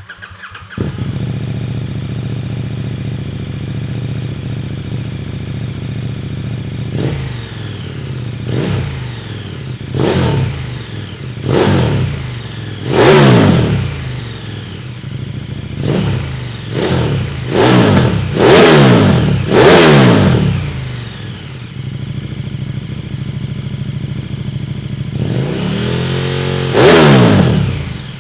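KTM 1390 Super Duke's V-twin engine through an Arrow X-Kone slip-on muffler, idling steadily and then blipped on the throttle about ten times in quick succession, each rev rising sharply and dropping straight back to idle, with one more blip near the end.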